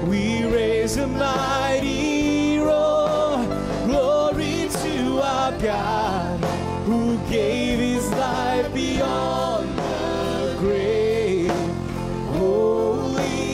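A man singing a congregational worship song into a microphone, accompanied by guitar.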